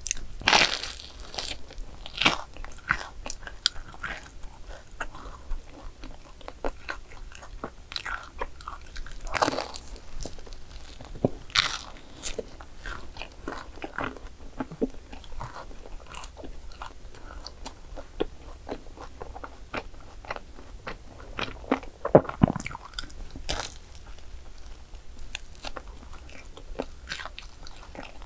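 Crunchy bites into crispy croissant waffles (croffles) and chewing, with crackly crunches throughout and a few louder bites now and then.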